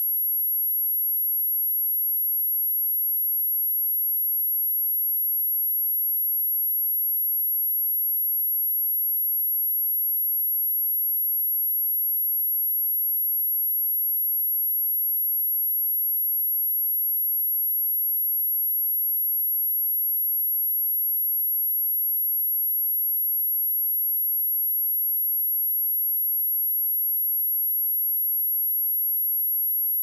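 Electronic sine-wave test tone at 11,587 Hz: one steady, very high-pitched tone held at a constant level, with no other sound.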